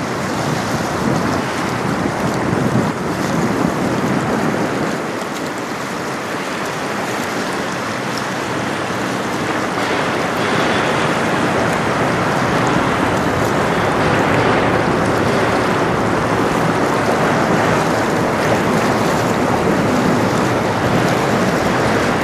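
Steady rush of wind on the microphone mixed with the wash of river water, a little louder from about ten seconds in; no distinct engine or horn stands out.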